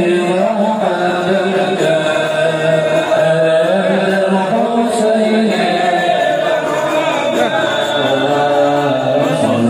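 Many men's voices chanting a devotional sholawat together in a steady, continuous melody, with no drums.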